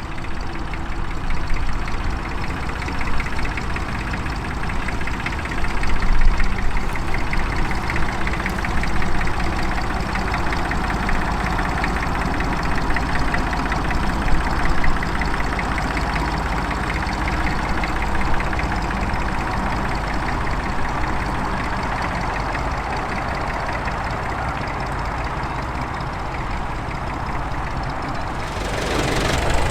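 Tractor engine running steadily, with a fast, even firing beat. The sound changes abruptly shortly before the end.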